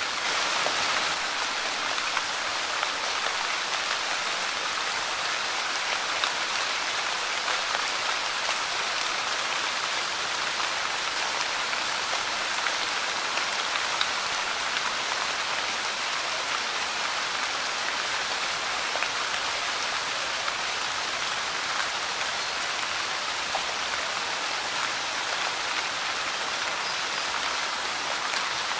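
Light rain falling on a Monstera deliciosa leaf: a steady hiss of many fine drop ticks, slightly stronger in the first second.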